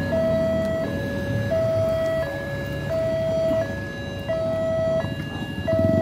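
Railway level-crossing warning siren sounding a steady two-tone high-low alternation, each tone held about three-quarters of a second; it warns of an approaching train as the barrier arms come down.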